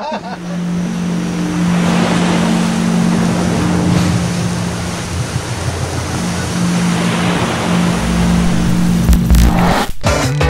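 Steady rush of ocean surf with a low steady hum beneath it; it cuts off abruptly near the end and music begins.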